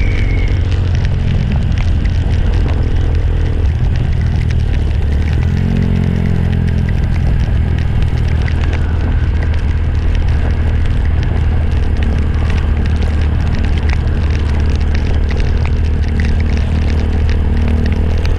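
Motorcycle engine running steadily while riding, with wind noise over the microphone; the engine note rises briefly about a third of the way in.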